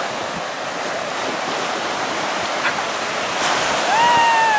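Surf breaking and washing up the sand in a steady rushing hiss. About four seconds in, a short high-pitched call rises, holds and falls away.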